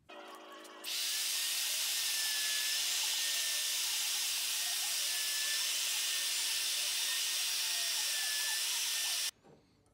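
Handheld router cutting walnut at the base of dovetails, with dust extraction running: a loud, steady running noise that comes in abruptly about a second in and cuts off abruptly near the end.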